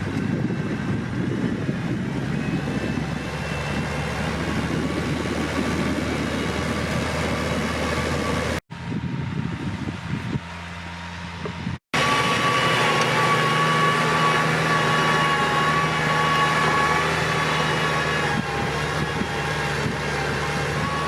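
Tractor engine running steadily with a low drone and a faint whine. The sound cuts out abruptly twice, about nine and twelve seconds in, between edited clips.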